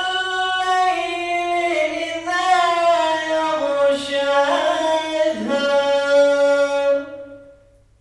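A man's voice chanting a Quran recitation unaccompanied into a microphone. It is one long, ornamented melodic phrase that slowly falls in pitch and fades out near the end.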